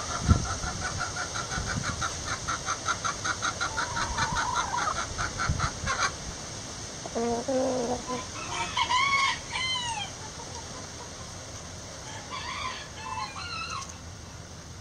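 Chickens calling: a fast, evenly spaced run of clucks for the first six seconds, then louder arching squawk calls around the middle and again near the end.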